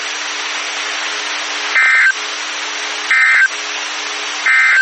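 Emergency Alert System (SAME) end-of-message data tones: three short buzzy digital squawks, about a second and a third apart, the first nearly two seconds in. They are heard over NOAA Weather Radio receiver hiss with a faint steady low hum, and they signal the end of the alert message.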